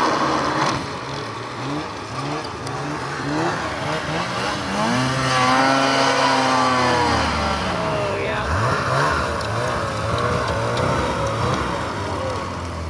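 Snowmobile engine revving, its pitch climbing and dropping again and again, with one long rise and fall about halfway through.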